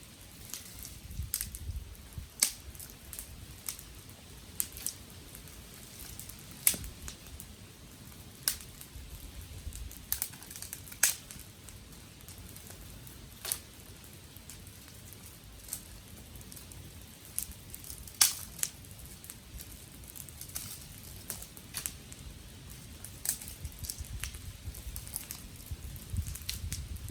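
Wood fire crackling, with irregular sharp pops every second or two and a faint low rush of flame underneath.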